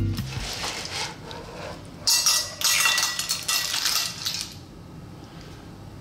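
Cooked clams in their shells tipped from a frying pan into a ceramic serving dish: the shells clatter and clink against each other and the dish. It comes in two spills, starting about two seconds in and lasting some two and a half seconds.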